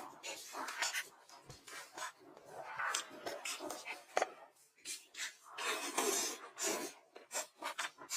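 Close-miked eating sounds: irregular crunching and chewing with small clicks, in uneven bursts.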